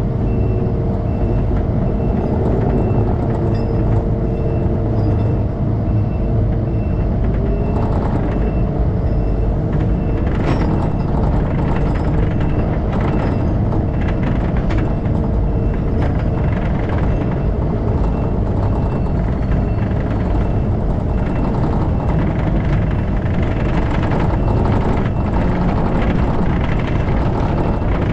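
Takeuchi TL12v2 skid steer's diesel engine running hard under load while dragging a stuck pickup out of the mud. Its backup alarm beeps steadily for the first several seconds, then stops.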